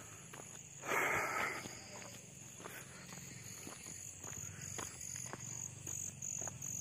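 Evening insects chirring steadily and high-pitched, joined about four seconds in by a pulsing chirp at roughly three beats a second, with a brief loud sound about a second in and faint footsteps.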